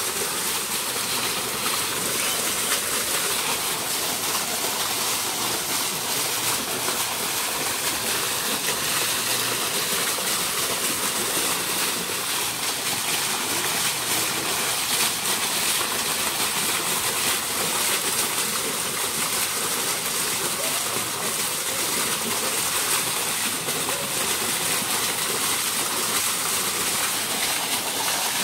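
Pond fountain jet splashing steadily into the water of a koi pond, a constant rushing splash.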